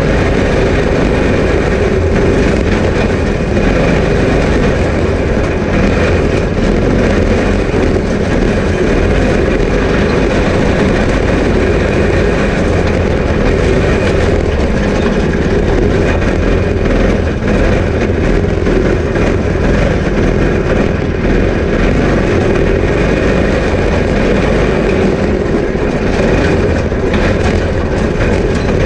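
Off-road go-kart engine running steadily under load while the kart drives over dirt, heard loud and close through the front-bumper camera with the frame's vibration on it.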